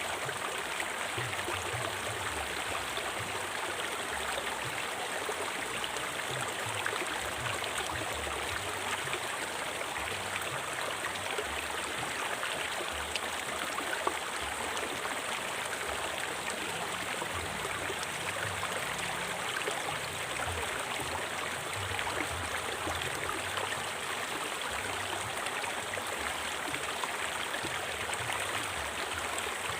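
A river flowing steadily over rocks, with an even rushing and babbling of water.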